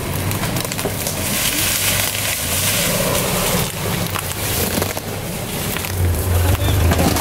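Branches and brush cracking and snapping under an off-road vehicle, with its engine running low underneath and growing a little louder near the end.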